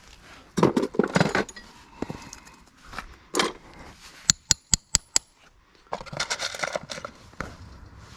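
Farrier's rasp scraping a horse's hoof in a few strokes, broken about halfway through by a quick run of six light metallic clinks, then more rasping near the end.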